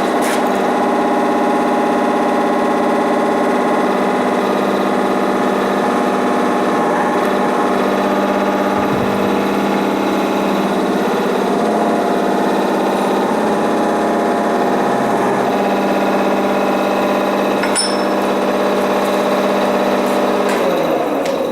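A motor running with a steady, even hum, which dies away near the end.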